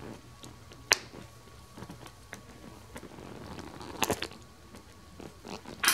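Three sharp clicks, about a second in, around four seconds in and near the end, over soft handling noise.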